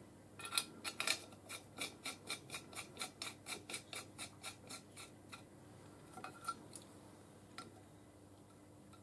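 A quick run of small metal clicks, about four a second, fading over about five seconds, as a bolt is turned by hand in the hinge joint of a steel box-section bracket; a few single clicks follow.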